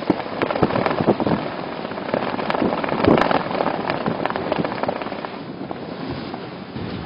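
Typhoon rain and wind: a dense rush of rain with many sharp crackling hits, strongest about three seconds in and easing a little in the last couple of seconds.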